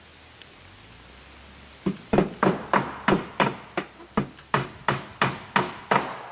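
Hammer driving nails into aluminum fascia trim: a run of about a dozen quick, ringing blows, roughly three a second, starting about two seconds in.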